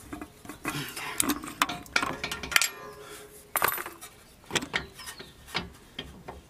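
Steel brake rotor being handled against the front wheel hub: irregular metal clinks and knocks, with a couple of sharper clanks in the middle.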